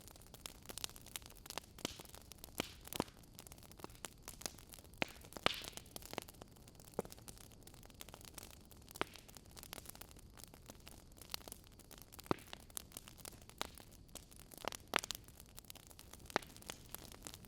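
Wood fire crackling: irregular sharp pops and snaps, a few every second, over a soft steady hiss.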